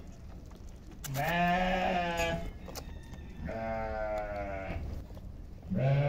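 Young goat kids bleating: three long, wavering bleats, the loudest about a second in, a fainter one about three and a half seconds in, and a third starting near the end.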